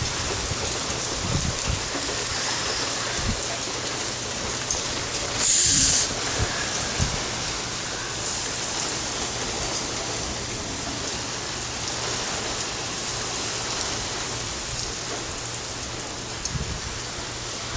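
Steady rain falling, with a brief loud hiss about five and a half seconds in.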